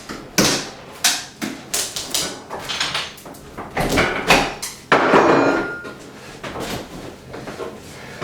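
Wooden kitchen cabinet being banged and worked loose from the wall: a run of irregular knocks and bangs, with a longer creak and crack of wood about five seconds in.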